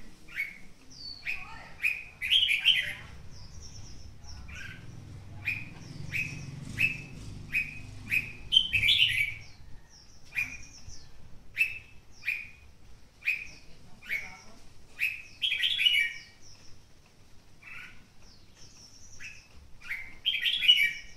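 Red-whiskered bulbul calling: short chirps every half-second or so, broken four times by louder warbled song phrases.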